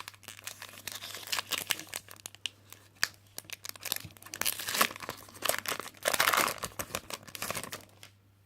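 Foil wrapper of a Pokémon TCG booster pack being torn open and crinkled by hand, a dense crackling with many small clicks, loudest about six seconds in.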